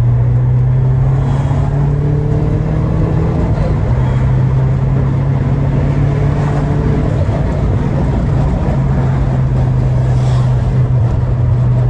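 Peugeot 208 GT's 1.6 THP turbocharged four-cylinder engine running at a steady cruise under the hum of road noise, its drone shifting slightly in pitch a few times.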